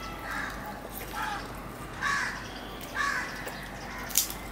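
A bird calling four times, about a second apart, with a sharp click near the end.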